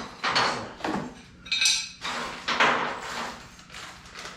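Skid-plate mounting hardware (bolts and nuts) clinking and clattering as it is handled and sorted: several short bursts, with one brief ringing metal clink about one and a half seconds in.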